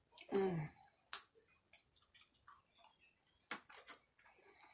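Close-miked mouth sounds of a person eating a hamburger and chili cheese fries: scattered wet clicks and smacks of chewing, with a short voiced hum falling in pitch near the start.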